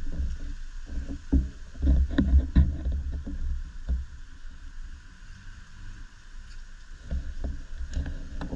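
Low rumbling with irregular soft thumps and knocks, typical of wind and handling noise on a GoPro's microphone while the camera is held nearly still, with a faint steady hiss higher up.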